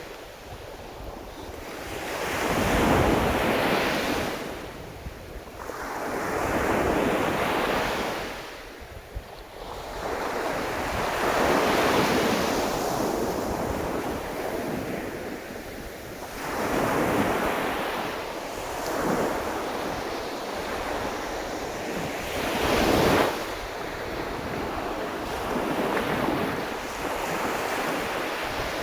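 Sea of Japan waves breaking and washing up the shore, the surf swelling and falling away about every four or five seconds.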